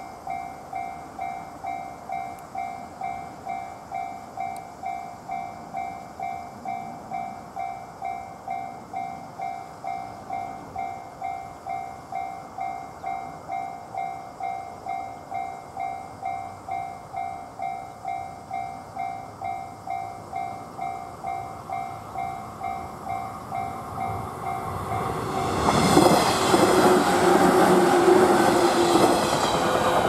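Japanese level-crossing alarm ringing its electronic two-tone ding about twice a second. About 25 seconds in, a train runs through the crossing and its loud rolling noise covers the bell.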